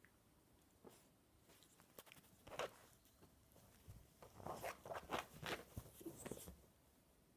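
Puppy scrabbling and twisting on fabric sofa upholstery as it chases its tail: a short rustle and scratch about two and a half seconds in, then a longer flurry of scuffling from about four to six and a half seconds.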